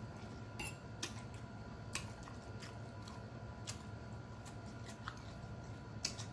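A person eating close to the microphone: a few sharp clicks of mouth and fork, irregularly spaced about a second apart, over a low steady hum.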